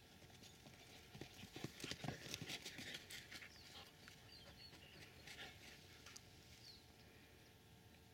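Quiet outdoor ambience with a flurry of quick, soft footfalls, a canine's paws on dry dirt and grass, from about one to three and a half seconds in. A few faint bird chirps sound in the background.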